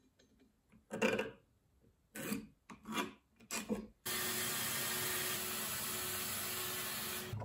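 A few short knocks and scrapes of the steel axe head and wooden handle blank being handled on a workbench, then, about four seconds in, a bandsaw cuts in suddenly and runs steadily, its blade cutting through an ash axe-handle blank with a faint steady hum under the cutting noise.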